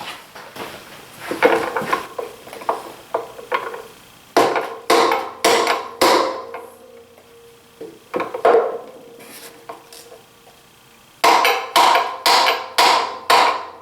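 Mallet strikes on a 3/4-inch socket set against a bearing's inner race, driving the bearing onto a DeWalt 735 planer's Shelix cutterhead shaft; each strike rings briefly. A few scattered knocks and clatter come first, then a quick run of about six taps near the end.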